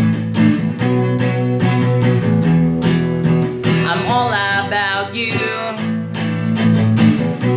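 Music: an electric guitar played over a backing track with a steady beat and held low chords. A wavering melodic line comes in about four seconds in.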